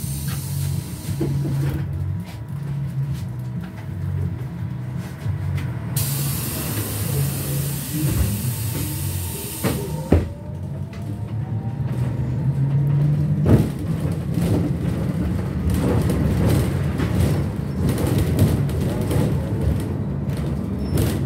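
Inside a trolleybus: two long hisses of compressed air, the first at the start and the second from about 6 to 10 seconds, over the running noise. Then the electric traction drive whines, rising in pitch as the trolleybus speeds up, and road rumble grows louder.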